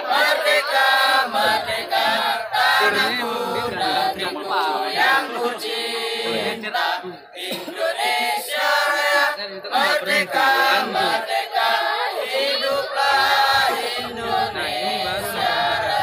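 Mixed group of young men and women singing a patriotic song together in unison, unaccompanied, into a microphone.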